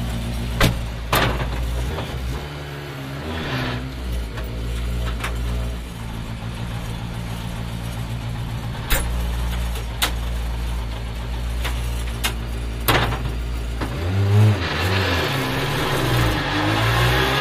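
Skoda Fabia R5 rally car's turbocharged four-cylinder engine idling, heard from inside the cabin, with a couple of short throttle blips and several sharp knocks. Near the end the revs climb steadily.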